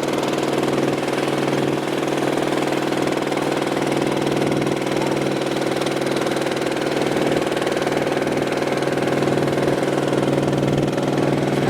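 Boat engine running steadily with an even hum.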